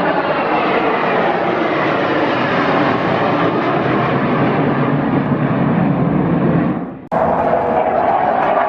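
Fixed-wing aircraft flying past, loud engine noise with its pitch gliding downward as it goes by. The sound breaks off abruptly about seven seconds in and comes straight back.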